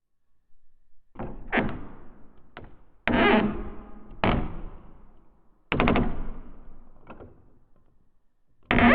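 Wooden door creaking on its hinges: a series of short, sudden creaks and knocks, some made of rapid clicks, each fading with an echoing tail. The loudest come at about 1.5, 3, 4.5, 6 and 9 seconds in.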